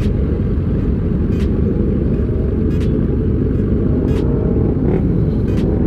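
Kawasaki ZX-10R sport bike's inline-four engine running at low revs as the bike rolls slowly, with a slight rise in engine pitch about four to five seconds in.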